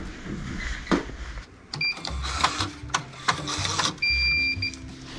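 Electronic beeps with clicking and rattling between them: a short beep, then a run of clicks, then a longer steady beep near the end, like a machine at a counter or a ticket machine being used.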